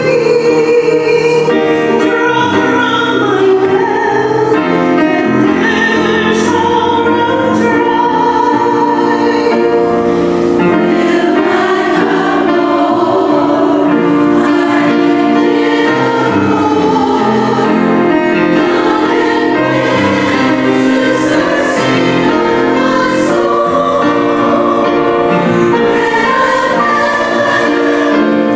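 A choir singing, with long held notes that shift every few seconds.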